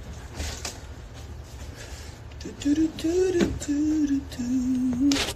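A man humming a short tune, a few held notes stepping up and down, starting about halfway through. Before that there are only a few faint clicks.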